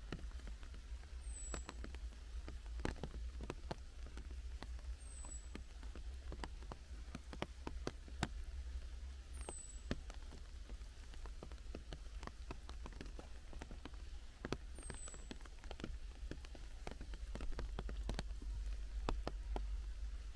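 Rain dripping through a forest canopy, scattered drops pattering on leaves and ground over a low rumble. A small bird gives a high, thin, falling call four times, a few seconds apart.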